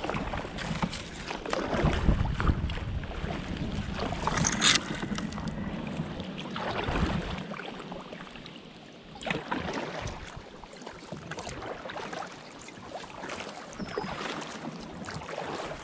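Kayak being paddled through shallow, weedy water: paddle strokes and splashes, with plants and twigs crackling and brushing along the hull and a loud brush or splash about four and a half seconds in. Wind rumbles on the microphone for the first half, then stops.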